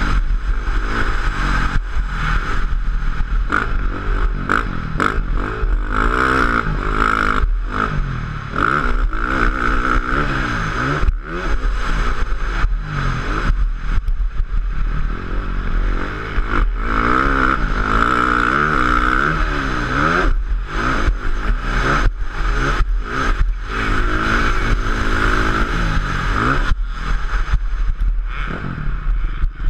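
A 450cc motocross bike's engine racing, its revs climbing and dropping again and again as the rider works the throttle and shifts. Steady wind rush on the helmet microphone, with clatter and knocks from the bike over the bumps.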